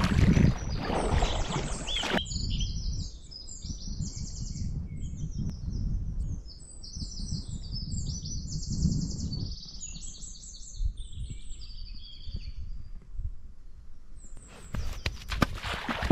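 Songbirds singing many short, high phrases over a low rumble. At the start a kayak paddle splashes in the water, and near the end there is splashing as a person runs through shallow water.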